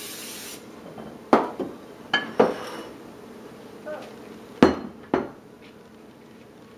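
A short hiss of non-stick cooking spray at the very start, then about six sharp clanks and knocks as a mixing bowl and a glass baking dish are handled and set down on the counter.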